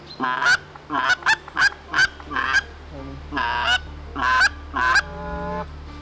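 Geese honking: a string of about nine loud, short honks in two bunches, with a lull about three seconds in.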